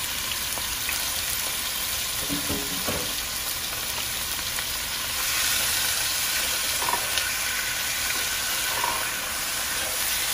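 Diced raw chicken breast sizzling in hot olive oil in a high-sided nonstick pan as the pieces are spread out, with a few soft knocks. The sizzle grows louder about five seconds in.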